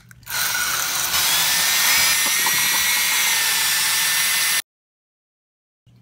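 Cordless drill spinning a hole saw, boring out the core of a peeled pineapple: a steady, loud drill whine that cuts off suddenly after about four and a half seconds.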